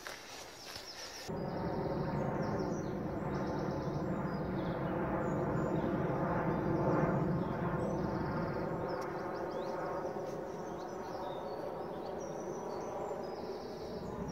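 Songbirds chirping over a steady low background rumble that swells toward the middle and eases off again. A brief quiet stretch of footsteps on leaf litter comes at the very start.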